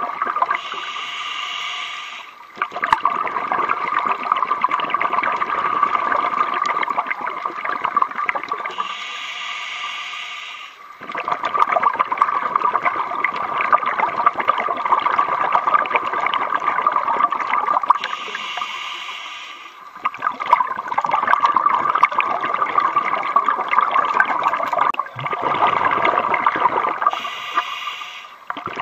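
Scuba diver breathing underwater through a regulator. Four short hissing inhales come about nine seconds apart, each followed by a long bubbling exhale.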